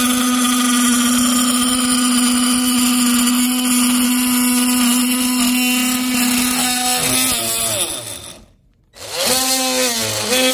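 Oscillating multi-tool running with a steady buzz as its blade cuts into a wooden board clamped in a bench vise. About seven seconds in the motor winds down and stops, then it starts up again briefly near the end and begins to wind down.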